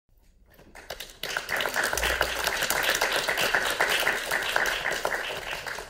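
A small audience applauding: many hands clapping, building up about a second in, holding, and easing off near the end.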